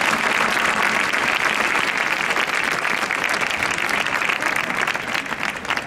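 Crowd applauding steadily, thinning to scattered claps near the end.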